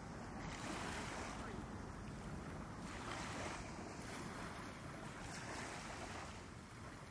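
Wind on the microphone over water lapping, a steady rush that swells and eases every second or two.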